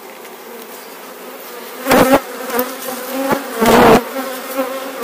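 Honey bees buzzing around an open hive frame: a steady hum, with two loud close buzzes about two seconds in and again near four seconds.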